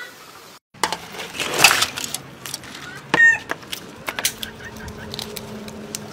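Water sloshing in a metal basin as crabs are washed by hand, with small clicks of shell being handled. A chicken gives one short squawk about three seconds in.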